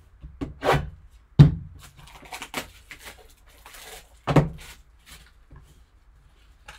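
A shrink-wrapped trading-card box handled and turned over on a tabletop: several dull thumps as it is set down and tipped, the loudest about one and a half seconds in and another just past four seconds, with rustling of the plastic wrap between them.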